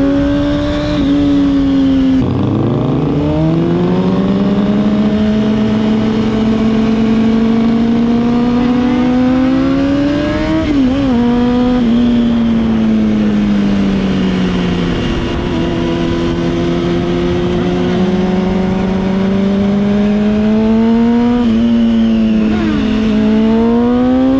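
Honda CBR600RR's inline-four engine under the rider, with wind rush, accelerating and cruising. The pitch falls sharply about two seconds in as it shifts up, then climbs and eases with the throttle, and rises again near the end.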